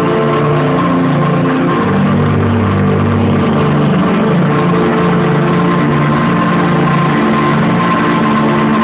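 Loud electronic dance music from a live DJ set over a club sound system, muffled in the recording: sustained bass notes and synth chords that change every second or so under a steady high tone.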